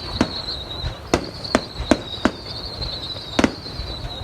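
Fireworks bursting in a display: six or seven sharp bangs at uneven spacing. A thin, high, steady whistling tone runs under them.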